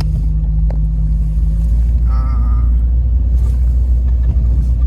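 Motor vehicle on the move: a steady, loud low rumble of engine and road noise, with a steady hum that drops out about a second and a half in.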